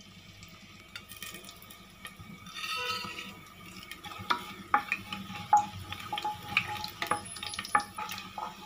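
Whole spices (fennel seeds, bay leaves and cloves) frying in hot oil in a metal pressure cooker with a light sizzle. From about four seconds in, a wooden spatula stirs them, with many sharp taps and scrapes against the pot.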